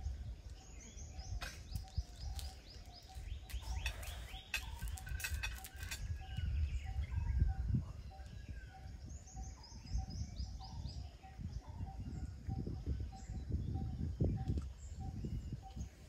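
Birds calling: a falling run of high notes twice, over a faint chirp repeating about twice a second. Under it come clicks and soft low thumps from a puppy gnawing food.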